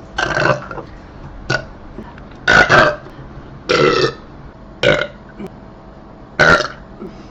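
A person belching repeatedly: about six separate burps roughly a second apart, some short and clipped, others drawn out to about half a second, with two coming back to back near the middle.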